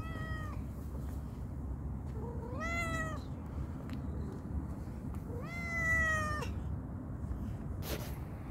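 Calico cat meowing: the tail of one meow, then two long meows about three seconds apart, each rising in pitch at the start.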